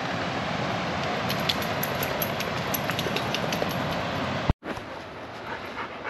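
Steady rush of river water running over rocks, with short high chirps over it. It breaks off with a click about four and a half seconds in, followed by a quieter hiss.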